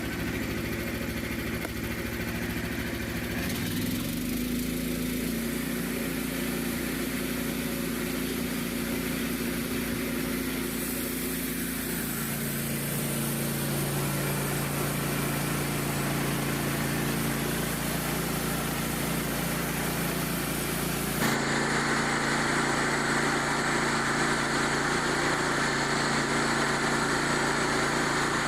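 Frontier OS27 portable band sawmill's small gas engine running steadily as the mill saws a white oak log. Its tone shifts a few times: about 4, 12 and 21 seconds in.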